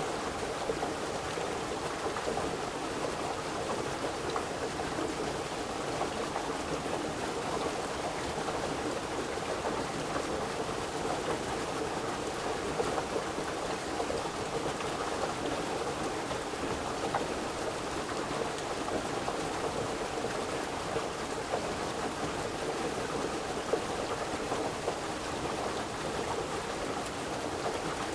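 Continuous rushing water: a steady, even wash of noise with small irregular peaks.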